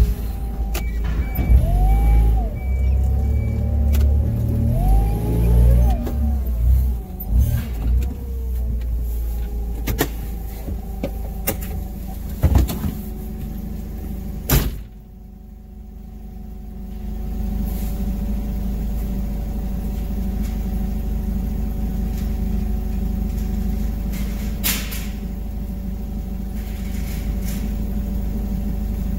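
Forklift at work: its motor whines up and down in pitch over the first few seconds, with clunks and knocks as it moves, and a sharp knock about halfway through. After that it sits running with a steady hum.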